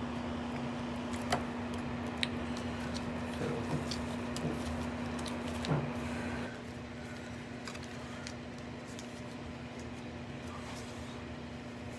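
Hands handling cards and packaging on a table: scattered small clicks and rustles over a steady low hum.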